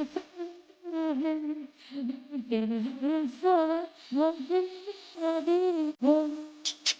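Music: a wordless melody with a wavering, bending pitch, carried alone without drums or bass, in a break of a Marathi DJ trap remix.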